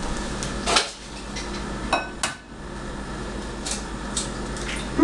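Eggs being cracked against a glass bowl: a few sharp knocks and clinks, one of them briefly ringing, with the small sounds of shell being pulled apart in between.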